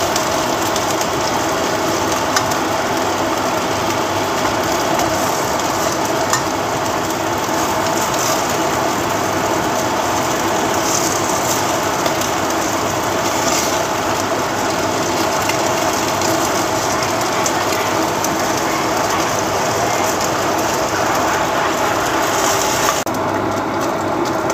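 Lamb pieces sizzling as they brown in an enamelled cast-iron pot, over a steady motor hum, with a few light clicks of metal tongs turning the meat. The higher hiss drops away near the end.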